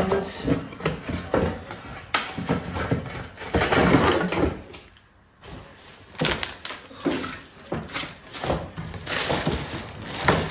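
Irregular rustling, scraping and knocks of a cardboard box and packaging being handled as a small gas heater with a metal grille is put back in its box, with a short lull about halfway.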